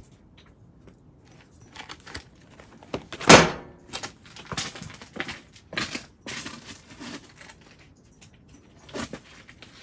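Handling noises: a run of clicks, knocks and rustles, the loudest a sharp knock about three seconds in.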